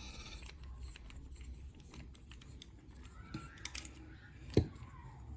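Small metallic clicks and scrapes as the cylinder core of a Zeiss Ikon padlock is worked with its key during disassembly, with a sharper click about four and a half seconds in.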